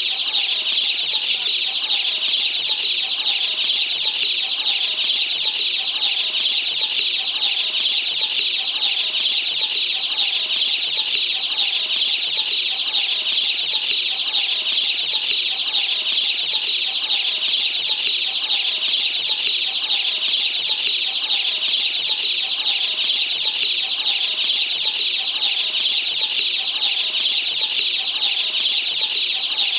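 Many baby chicks peeping together in a steady high chorus, with a hen's low clucks repeating underneath.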